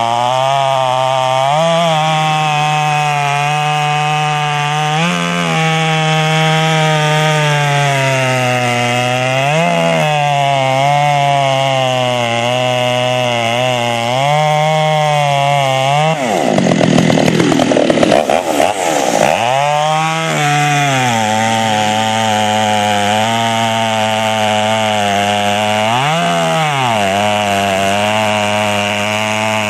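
Poulan Pro 655 boost-port two-stroke chainsaw cutting through a large log at full throttle, its engine pitch sagging under load and recovering every few seconds. About halfway through, the sound turns louder and ragged for a few seconds, then settles back into the steady cut.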